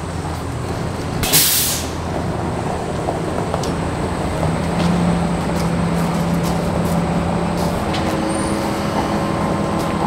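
Flatbed tow truck's engine running steadily, with a sharp air hiss lasting about half a second, like an air brake releasing, a little over a second in. The engine note shifts pitch about halfway through and again near the end.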